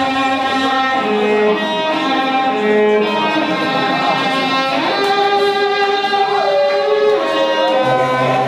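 Live music: a bowed cello playing long held notes with slides between pitches, over a bed of sustained electronic tones. A low steady note comes in near the end.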